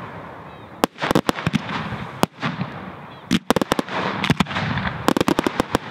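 Fireworks display: aerial shells going off in sharp bangs, some single and some in quick clusters, with a noisy hiss between them. A rapid run of bangs comes near the end.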